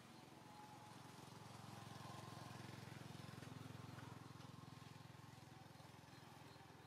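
Near silence with a faint, low motor hum that swells about two seconds in and fades again: a distant vehicle passing.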